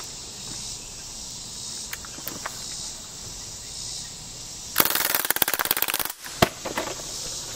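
A full-auto BB gun firing one rapid burst lasting about a second and a quarter, starting a little under five seconds in, followed by a single sharp crack. Insects chirp faintly in the background.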